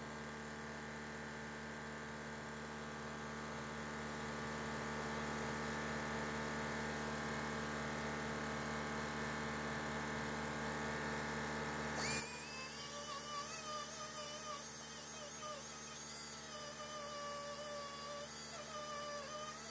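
A small high-speed power grinder running steadily, cleaning up welds on a steel body patch, then shutting off suddenly about twelve seconds in. A fainter, wavering hum carries on after it.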